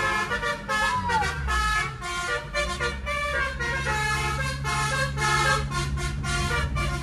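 Basuri telolet musical air horn set, fed by a compressor, playing a fast melody of horn notes that change every fraction of a second, over a steady low hum.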